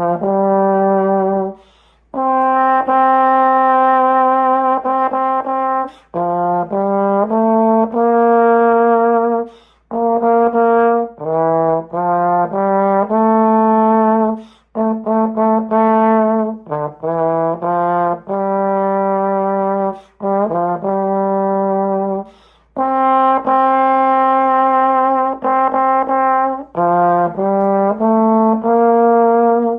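Solo brass instrument playing a slow melody in a low-to-middle register, one line of held notes moving in steps. The phrases are separated by short breath pauses.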